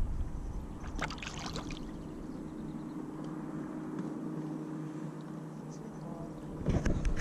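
Wind buffeting the microphone, easing off after the first couple of seconds and picking up again near the end. A few brief clicks come about a second in, and a faint steady hum runs under the quieter middle.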